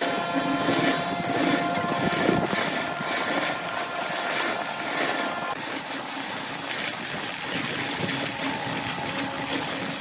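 Wood lathe running steadily, its spinning workpiece of bamboo chopsticks and epoxy resin being worked with a tool or sandpaper; the steady tones in the sound change about halfway through.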